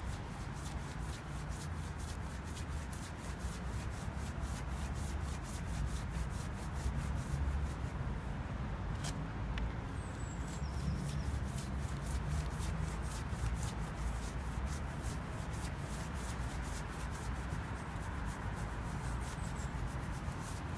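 A brush scrubbing graffiti-removal chemical into a spray-painted tag on a brick wall, in rapid, repeated scraping strokes.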